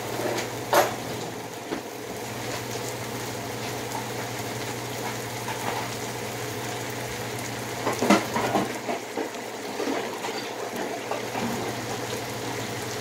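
Seafood sauce with angel hair pasta simmering and sizzling in a pan, with a utensil clinking and scraping against the pan about a second in and again several times around eight seconds.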